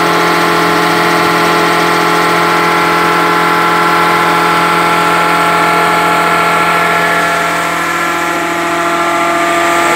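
GA15 rotary screw air compressor and its 30 hp electric motor running with a steady hum of many tones. This is the unit that is overheating and tripping out.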